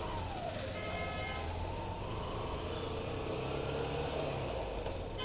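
Hero Hunk single-cylinder motorcycle engine running as the bike rides along a street, its note gliding up and down. A vehicle horn toots for about a second, about a second in.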